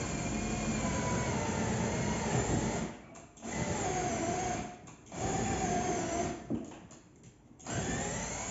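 Handheld electric drill running in several bursts of one to three seconds with short pauses between them, its motor pitch wavering under load as it works on the window frame.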